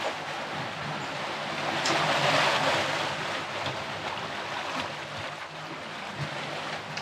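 Wake water rushing and splashing past the stern of a catamaran under sail, swelling louder about two seconds in.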